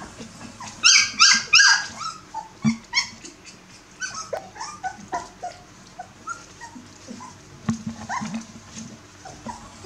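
A litter of bearded collie puppies yipping and whimpering. Three loud, high-pitched yelps come in quick succession about a second in, followed by scattered short squeaks and whines.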